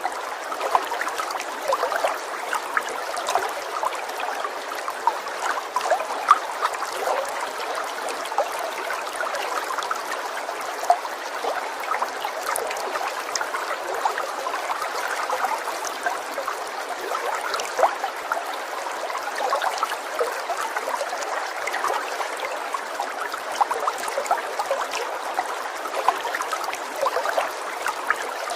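Steady running water trickling and gurgling, with many small splashes throughout.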